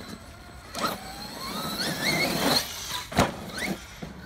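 Cen Reeper 1/7 scale RC monster truck's electric motor and drivetrain whining, rising in pitch as it accelerates over the dirt, with a sharp thump about three seconds in.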